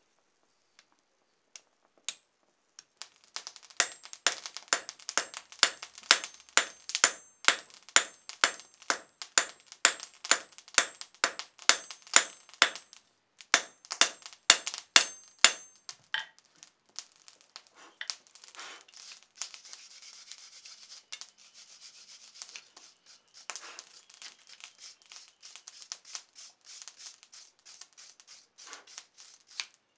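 Hand hammer striking a glowing steel billet on an anvil, about two or three ringing blows a second with one short pause, setting a forge weld of high-carbon steel onto mild steel. The hammering then stops and a wire brush scrubs scale off the hot steel.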